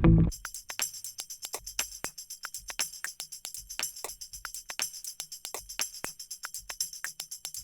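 Background music in a quiet stretch where the full band drops out, leaving only a quick, steady rhythm of light high percussion strokes over a faint low line.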